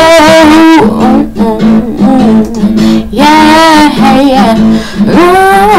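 A woman singing over strummed guitar. A long held note with vibrato ends about a second in, then guitar strumming carries on, with more held sung notes near the middle and the end.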